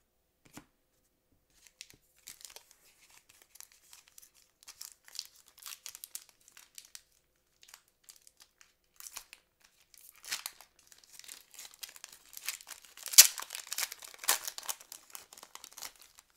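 Foil wrapper of a football-card pack being torn open and crinkled by hand: scattered crackles that grow louder and busier from about ten seconds in, with the sharpest snap about thirteen seconds in.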